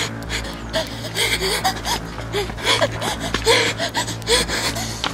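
A person panting and gasping hard while running, short voiced breaths about twice a second, over a low steady hum.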